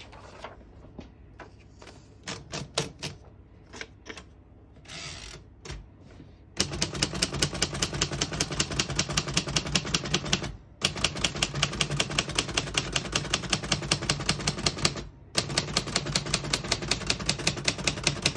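A 1948 Royal Quiet De Luxe portable typewriter: a few scattered clicks, then from about six seconds in a steady run of rapid key strikes, several a second, broken twice by short pauses.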